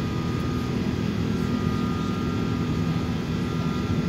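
Steady cabin noise inside an Airbus A380 climbing shortly after takeoff: a deep rumble from its four turbofan engines and the airflow, with a faint steady whine above it.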